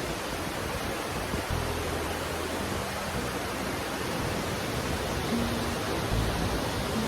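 Dynjandi waterfall's steady, even rush of falling water.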